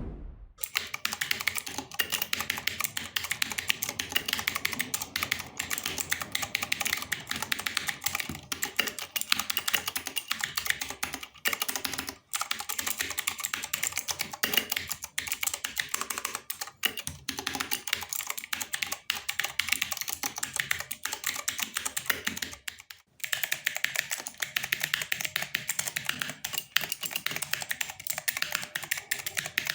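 Fast, continuous typing on a Redragon Kumara K552 mechanical keyboard, a dense stream of key clicks heard as a sound test of the keyboard's modifications. The typing stops briefly about 23 seconds in, then resumes.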